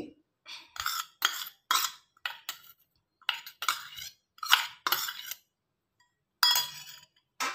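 Small stainless steel bowl knocked against the rim of a larger steel mixing bowl to shake out its contents: a dozen or so sharp metallic clinks, unevenly spaced, with a short pause before a last one near the end.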